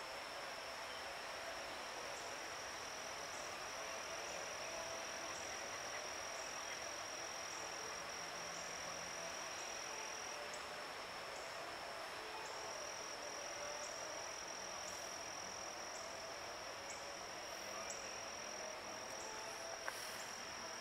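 Insects such as crickets or katydids trilling: one continuous high-pitched tone, with a faint pulse about once a second, over a quiet outdoor hiss.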